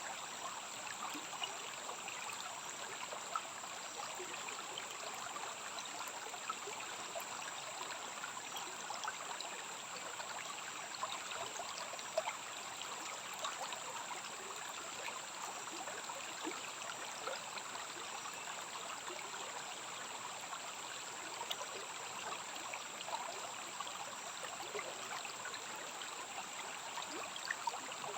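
Stream flowing and trickling steadily, with a dense patter of small splashes, under a steady high-pitched hum.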